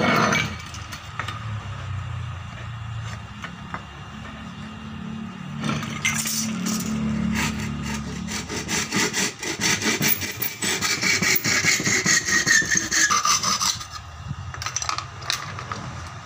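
Hand saw cutting a wooden handle blank clamped in a bench vise, with a thump at the very start. The saw runs in rapid back-and-forth strokes from about six seconds in, getting louder, with the pitch of the cut dropping near the end. It stops about fourteen seconds in.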